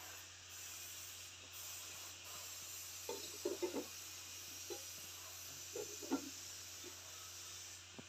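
Faint, steady hiss of outdoor background noise, with a few brief muffled sounds near the middle.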